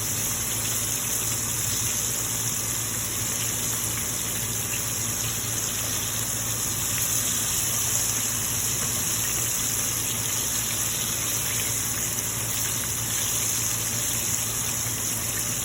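Cornstarch-coated chicken breast cubes deep-frying in hot oil: a steady sizzle, with a low steady hum beneath.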